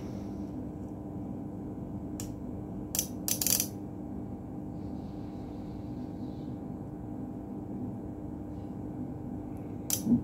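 A steady low hum with a few sharp clicks and a brief rattle about two to three and a half seconds in, and another click near the end, as metal multimeter probe tips are set down on a circuit board.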